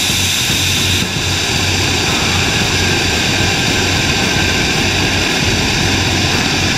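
Small liquid-propellant rocket engine with an ablative combustion chamber in a static hot fire: a loud, steady roar of the exhaust jet with no let-up.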